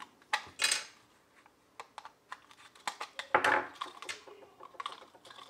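Plastic clicks and scrapes of a Shelly 4Pro DIN-rail relay module's case being pried apart with a screwdriver, as the front section with its screen comes off the circuit board. Scattered sharp clicks, with a louder scraping rasp about three and a half seconds in.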